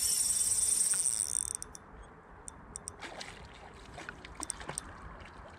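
Spinning reel cranked to wind in line on a hooked pike, a steady high whirr that stops abruptly about a second and a half in, followed by scattered small clicks of handling.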